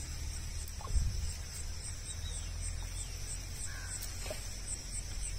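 Insects chirping steadily: a high continuous trill with short regular chirps about two to three a second, over a low rumble. A soft thump about a second in.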